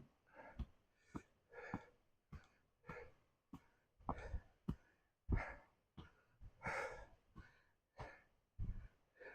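A person breathing hard in short, repeated breaths while hiking uphill under a load, with soft thuds in between.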